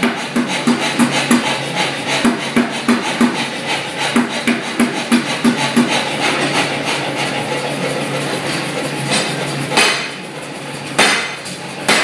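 Power hammer striking a hot steel bar in quick repeated blows, about three or four a second, drawing a taper on the bar end. The blows stop about halfway through, leaving the machine's steady running noise, and a few loud single metal clanks come near the end.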